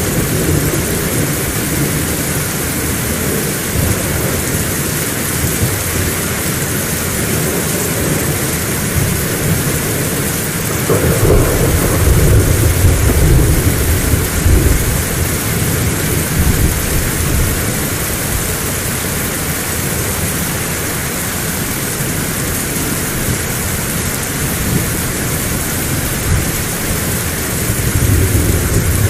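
Heavy rain falling steadily, with low rolls of thunder that swell loudest about eleven to sixteen seconds in and again near the end.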